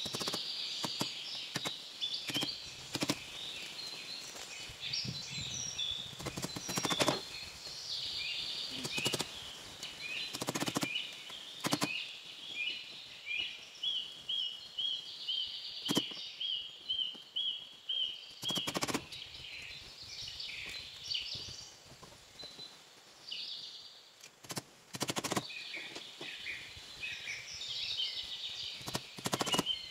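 Several birds chirping and singing throughout, with a run of about ten evenly spaced chirps midway. Sharp knocks every few seconds, at irregular intervals, cut across the birdsong.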